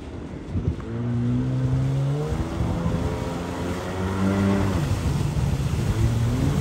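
Jet ski engine running hard at speed, its note rising and falling a few times as the craft accelerates and turns.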